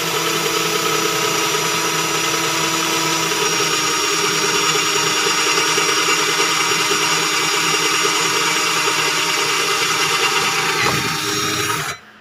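Black and Decker GC1800 18-volt cordless drill/driver running steadily under load while a metal drill bit bores through thick steel angle bar. It stops near the end.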